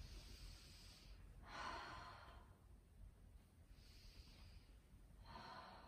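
A woman's soft, airy breaths, heard three times, paced with a slow side-to-side spinal twist: breathing in to the centre and out to the side. Under them is a faint low room hum.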